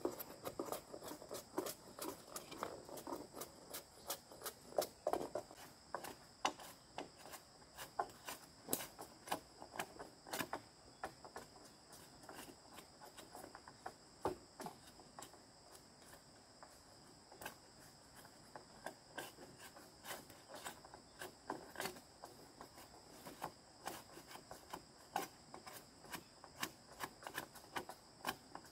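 Steady high-pitched insect chorus, with many irregular sharp clicks and knocks scattered throughout.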